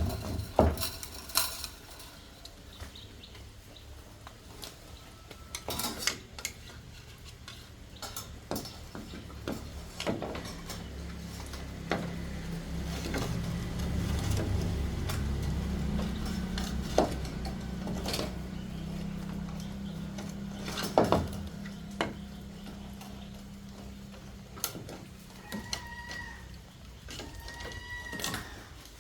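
Scattered sharp knocks and clacks of bamboo being chopped and handled. A low steady hum swells in the middle and fades, and a short pitched animal call sounds twice near the end.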